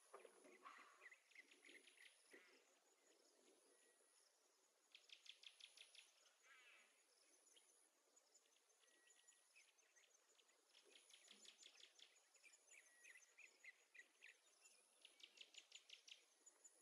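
Faint outdoor birdsong: several bursts of fast, rapidly repeated high notes and scattered chirps, with a thin high-pitched tone that comes and goes.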